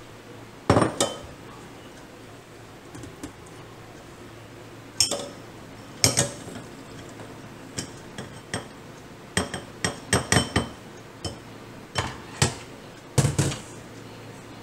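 A stainless mesh strainer knocked against the rim of a ceramic bowl to shake out cooked pasta shells: a string of sharp, irregular clinks and knocks, several in quick succession about two-thirds of the way through.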